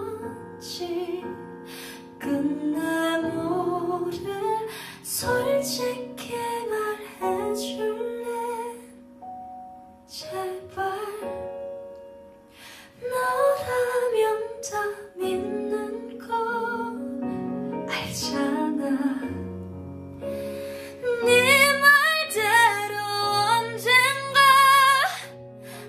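A woman singing a slow ballad over an instrumental backing track, her voice worn and strained. The singing dips briefly about ten seconds in and grows louder, with clear vibrato, over the last few seconds.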